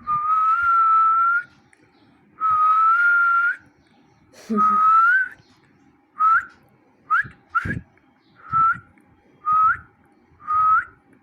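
Whistling: three long, nearly level notes, then a run of short upward-flicking whistles.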